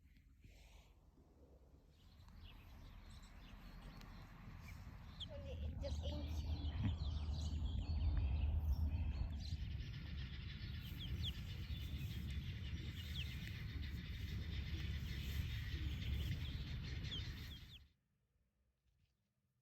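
Many day-old poultry chicks peeping in short high calls, over a strong low rumble; it all cuts off abruptly near the end.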